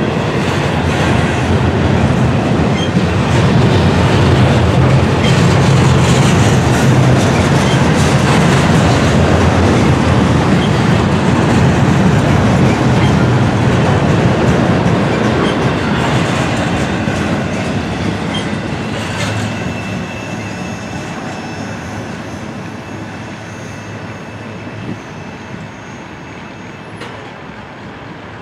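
Double-stack intermodal container well cars rolling past on steel rails: a steady, loud rumble of wheels and rail joints with clickety-clack. In the second half it fades steadily as the end of the train draws away, with a faint thin wheel squeal.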